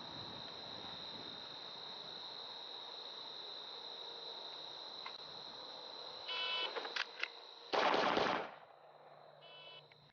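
Electronic shot timer beeps, and about a second and a half later a loud, brief blast of pistol fire comes as a single dense burst under a second long. A second timer beep sounds near the end, marking the par time.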